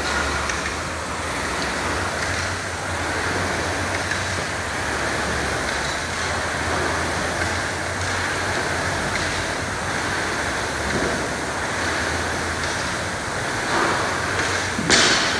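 Concept2 rowing machine's air-resistance fan flywheel whooshing steadily under continuous hard strokes, with a sharp clack near the end.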